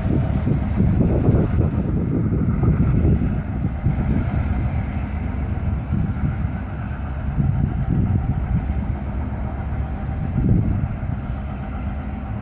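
CN diesel freight train running away from the listener, a low rumble that fades slightly, with wind buffeting the microphone in gusts.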